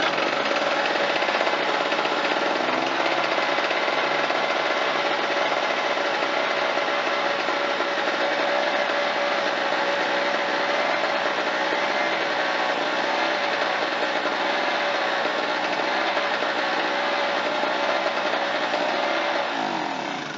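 Harbor Freight Tailgator generator's small two-stroke engine starting and running steadily at speed, now running on a new ignition coil. Near the end it is shut off and winds down, its pitch falling.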